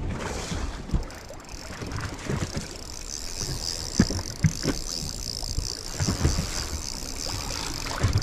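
Wind buffeting the microphone and choppy water lapping against a small boat, with scattered knocks and a steady high hiss that starts about a second and a half in.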